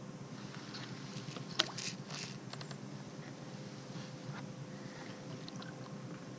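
Kayak paddle strokes in shallow, leaf-covered swamp water: light dripping and splashing from the blade, with a sharp click about a second and a half in followed by a quick cluster of splashy clatters, over a steady low rumble.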